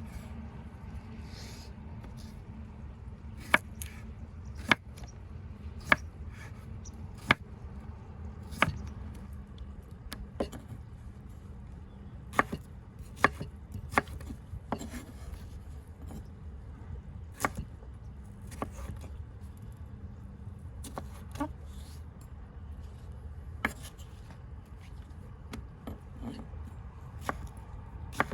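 Knife chopping food on a wooden cutting board: single sharp strokes, about one a second at first, then more irregular.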